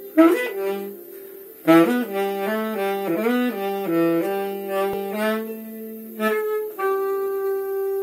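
Tenor saxophone playing a melody of short notes, then a long held note near the end.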